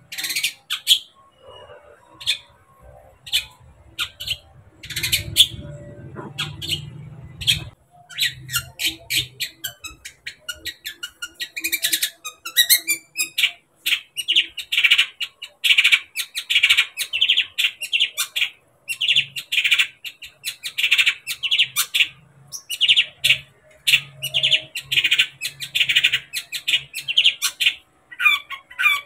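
Caged long-tailed shrike (cendet) singing: a rapid string of short, chattering notes, scattered in the first half and near-continuous in the second.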